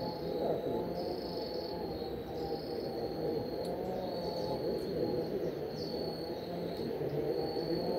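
Insects trilling at a high pitch in short repeated phrases, over a louder, steady mix of lower background sounds.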